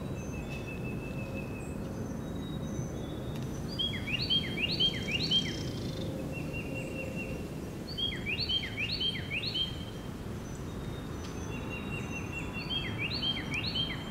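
A songbird singing three bursts of four or five clear, downslurred whistles a few seconds apart, with short series of thin, even notes in between, over a steady low background rumble.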